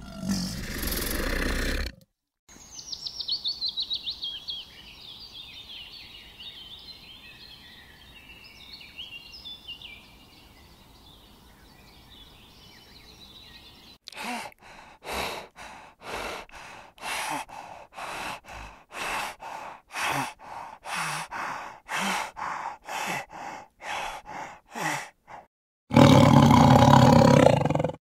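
A sequence of separate animal sound clips: a loud call, then bird chirps starting with a fast falling series, then a run of short sharp sounds about two a second, and another loud, drawn-out call near the end.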